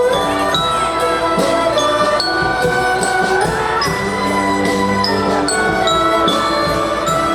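Instrumental music: long held melody notes over a light, steady beat.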